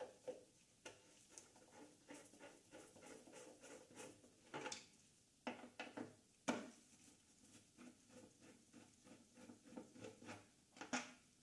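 Quiet clicks and taps of hand tools working on a motorcycle's bolts and parts, with a few sharper knocks around the middle and near the end.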